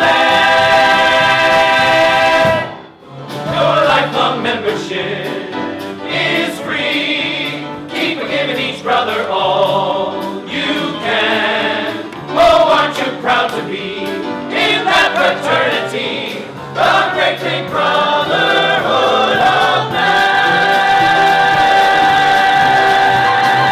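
Musical-theatre cast singing together in full chorus. It opens on a held chord, breaks off briefly about three seconds in, sings on through a moving passage, and closes on a long held chord.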